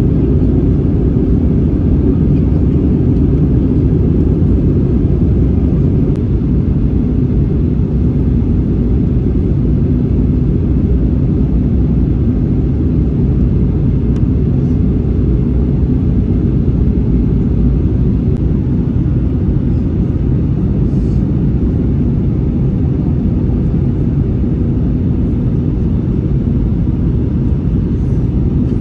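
Steady low rumble in the cabin of an Airbus A320-200 in flight: engine and airflow noise heard from a window seat over the wing.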